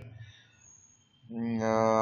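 A man's voice only: a short pause in his talk, then from a little past halfway a long drawn-out voiced sound as he starts speaking again.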